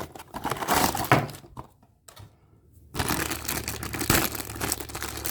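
Packaging of a blind-box collectible figure being torn open and crinkled by hand, with a short silent break about two seconds in before the crinkling resumes.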